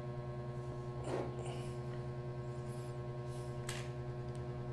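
Steady electrical hum, with faint handling sounds of a metal airsoft pistol being taken apart over it: a short scrape about a second in and a sharp click near the end as the barrel assembly is pulled off the frame.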